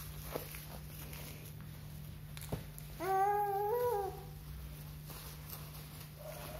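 A baby cooing once, a drawn-out vocal sound of about a second, midway through, that steps up in pitch near its end, over a steady low hum.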